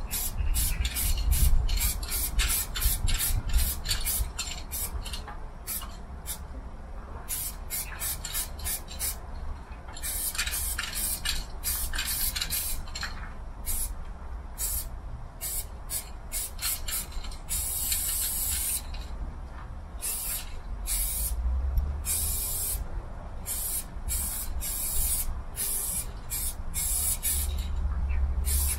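Aerosol spray-paint can hissing in many short bursts, often several a second, with one longer spray of about a second and a half past the middle. A steady low rumble sits underneath.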